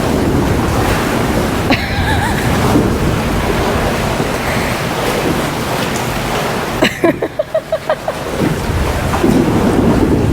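Steady wind noise buffeting the microphone. About two seconds in there is a brief click, and near the end a quick run of about six short pitched pulses.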